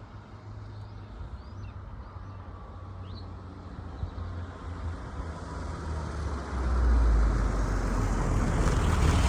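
A car's low engine rumble growing steadily louder, stepping up sharply about six and a half seconds in, with a few short bird chirps in the first three seconds.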